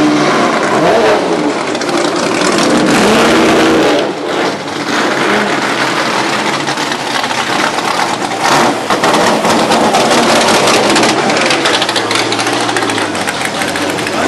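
Race car engines running loudly and revving as the cars drive slowly past, with the engine pitch rising and falling through the first few seconds.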